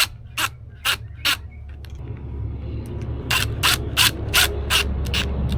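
Short, sharp rattles and clicks from handling a keyless deadbolt's small parts and hardware bag: four in the first second and a half, then a quicker run of about eight, over a steady low hum.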